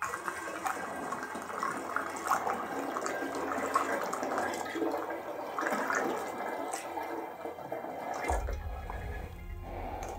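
Honey dissolved in water poured from a stainless steel pot through a plastic funnel into a glass carboy of fermenting mead, a steady splashing stream: the back-sweetening of the mead. The pour ends about eight seconds in, and a low rumble follows.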